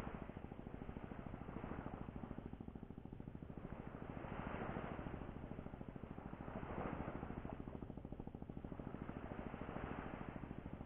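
Small waves washing onto a sandy beach, each swell of surf hiss rising and fading every two to three seconds, over a steady low, fast flutter.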